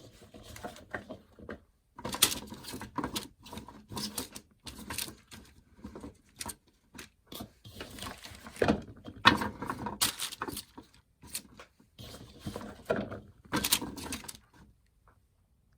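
Cut sweet potato fries being spread out by hand on a wax-paper-lined baking pan: irregular light taps and rustles.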